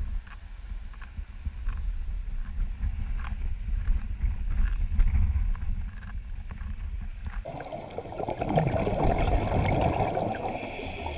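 Wind buffeting a camera microphone: a low rumble with faint ticks. About seven seconds in, the sound cuts to underwater audio, a muffled hiss and gurgling of water.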